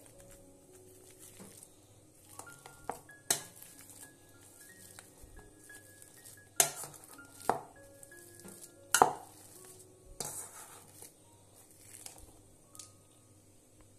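A metal potato masher pressing boiled potatoes in a stainless steel bowl, with a few sharp metal clinks as it strikes the bowl, the loudest about three, six and a half, seven and a half and nine seconds in. Soft background music plays underneath.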